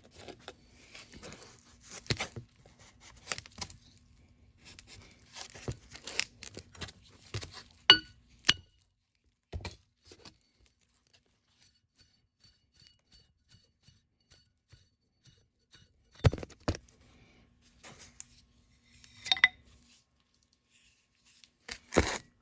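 Metal parts of a disassembled hydraulic cylinder being handled: scattered knocks, clicks and rustling, with two ringing metal clinks, about eight and nineteen seconds in, and a near-quiet stretch of several seconds in the middle.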